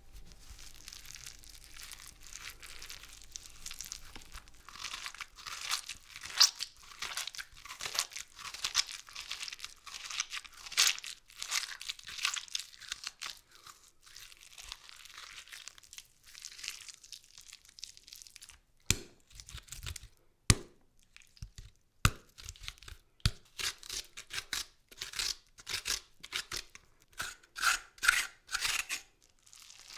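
A squash being crushed and torn apart close to the microphone for gory foley: a long stretch of wet crunching and tearing of its flesh, then several sharp single cracks and a quick run of crunches near the end.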